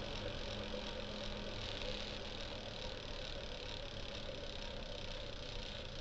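E-bike wheel spinning in a truing stand, a steady mechanical hum that fades slightly toward the end.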